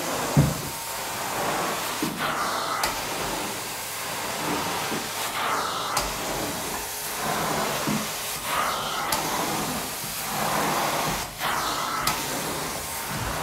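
Carpet steam-cleaning (hot water extraction) wand spraying and sucking water from carpet, a steady hissing, rushing vacuum sound. It swells and changes with each push-pull stroke, about every three seconds.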